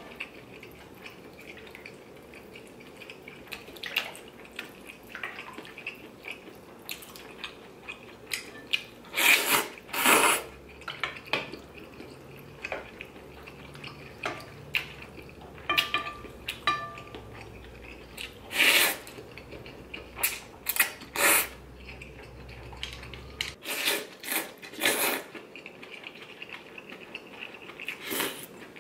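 Slurping ramen noodles and broth from a large ceramic bowl: several loud slurps, with chopsticks and a metal spoon clinking against the bowl between them.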